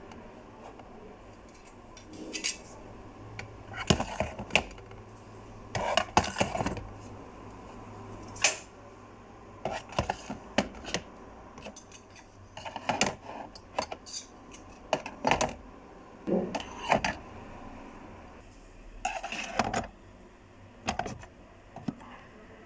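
Irregular clinks, knocks and clatters of small hard objects being handled, a few every couple of seconds.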